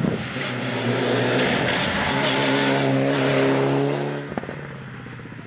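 Mitsubishi Lancer Evo VIII rally car's turbocharged four-cylinder engine running hard as the car drives past on a tarmac stage. The sound drops away sharply about four seconds in.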